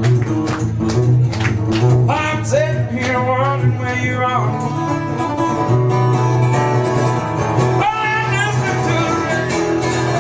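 Steel-string acoustic guitar strummed steadily through a country song, with a man's voice singing a melody line over parts of it, about two seconds in and again near eight seconds.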